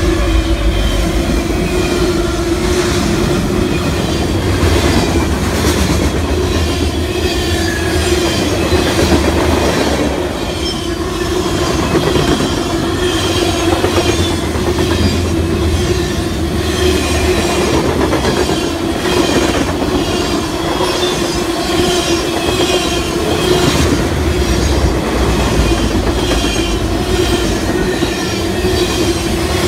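Freight train cars rolling steadily past, a continuous rumble with wheels clicking over the rail joints and a steady tone running through it.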